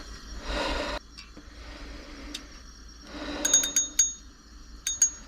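Handling noise: rustling with several sharp clicks, each with a brief metallic ring, in a quick cluster a little past the middle and another pair near the end.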